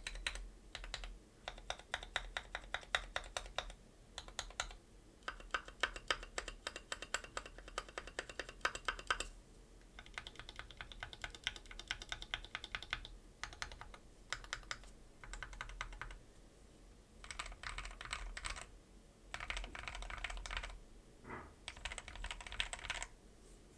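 Keychron Q2 mechanical keyboard with hand-lubed Gateron Milky Yellow switches, tuned stabilizers and a three-layer tape mod, typed on in quick bursts of keystrokes broken by short pauses; a deep, thocky key sound.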